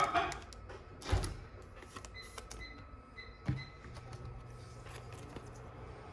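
Trading cards being handled: a few soft taps and knocks as cards are set down and slid about. Four faint short beeps come in the middle.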